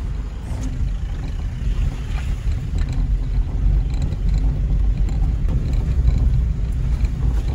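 Car driving over a rough, broken hill road: a steady low rumble of engine and tyres.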